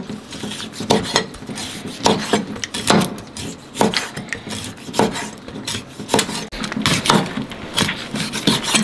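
Kitchen knife slicing raw sea cucumber on a cutting board: irregular knocks of the blade on the board, about one or two a second, with faint scraping between strokes.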